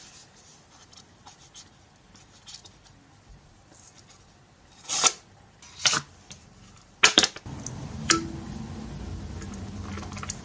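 Handling sounds: light scratching and rubbing, then several sharp clicks between about five and eight seconds in, followed by a low steady hum.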